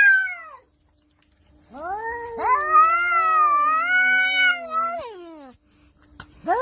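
Cats yowling at each other in a standoff, the drawn-out caterwauling of cats threatening before a fight. One call fades out just after the start; after a short pause comes a long, wavering yowl of about three seconds, and another call begins near the end.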